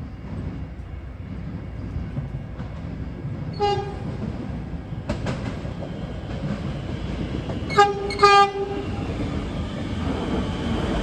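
Siemens Nexas electric train's low-note horn sounding three short toots: one about three and a half seconds in, then two close together near eight seconds, the last a little longer. Under it the rumble of the train running into the station grows steadily louder.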